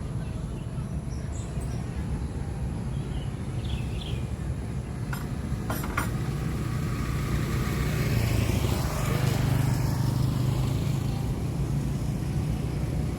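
Steady low hum of road traffic, swelling as a vehicle passes about eight to ten seconds in, with a few sharp knocks about five to six seconds in.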